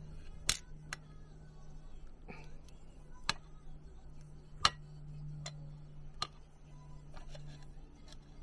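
Small plastic parts being handled over a stainless steel tray: about eight sharp clicks and taps at irregular intervals, the loudest about half a second in and about four and a half seconds in, over a steady low hum.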